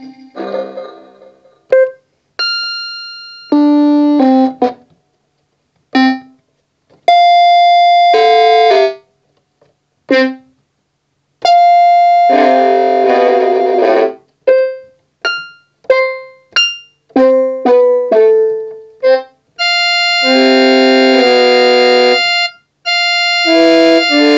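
Everest electronic keyboard playing a halting run of chords and single notes with silent gaps between. A few chords are held for a second or two and cut off sharply; the short notes between them fade quickly.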